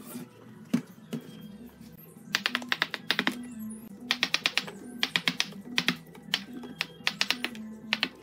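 Wooden mallet striking a wood chisel in quick runs of sharp taps, five runs in all, chipping away rotten stump wood, over background music.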